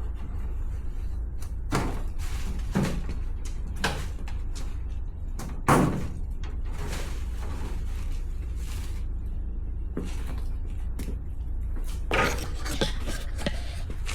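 Scattered knocks and clunks of someone working inside a car, reaching through to a stuck trunk latch, with one louder thump about six seconds in and a cluster of knocks near the end, over a steady low hum.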